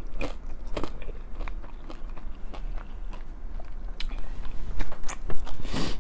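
Eating sounds close to the microphone: chewing and biting into soft dumplings and rice cakes, a run of irregular short clicks, loudest just before the end.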